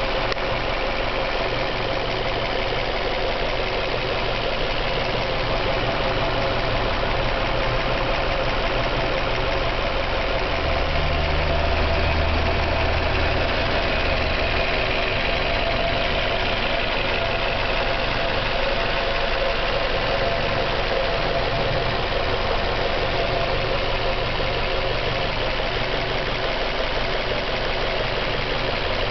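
Warmed-up car engine idling with a rapid, steady knock (стук) that appears once the engine is hot. A deeper hum swells for a few seconds midway.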